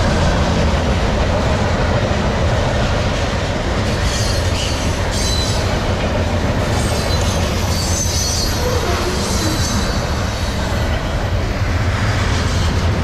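CSX freight train of loaded garbage-container cars rolling past with a steady rumble of wheels on rail, with brief high-pitched wheel squeals now and then.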